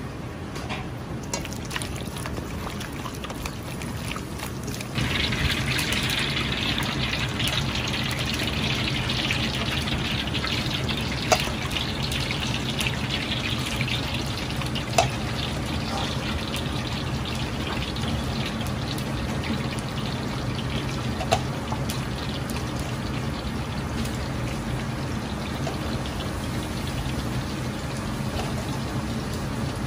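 Marinated chicken wing middles being deep-fried in hot oil in an iron wok: a hissing sizzle that jumps up sharply about five seconds in as the pieces go into the oil, then carries on steadily. A steady low hum lies under it, and a few sharp clicks sound now and then.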